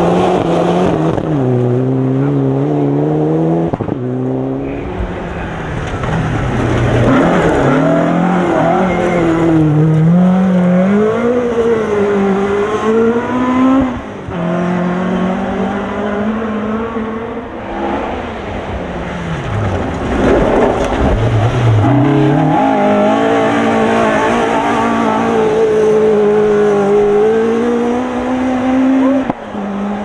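Rally cars at full throttle on a loose gravel stage: engines rise and fall in pitch through gear changes and lifts, with tyres scrabbling on the gravel. A Mitsubishi Lancer Evolution is sliding through at the start.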